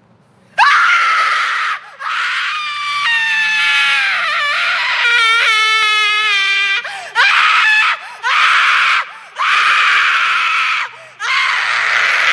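A string of very high-pitched female screams, one after another with brief gaps. Most are shrill and raspy. A long scream in the middle holds a clear pitch that slides downward and then wavers.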